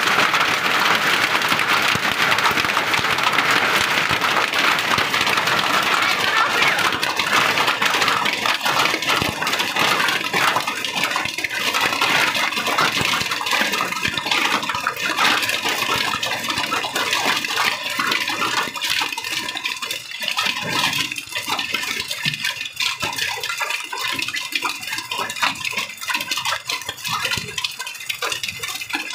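Rain mixed with hailstones pelting the ground, a dense hiss full of small ticks that eases off over the second half, where the separate hard ticks of hailstones stand out more.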